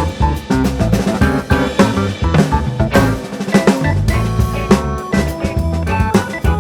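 Background music with a drum kit keeping a steady beat under pitched instruments.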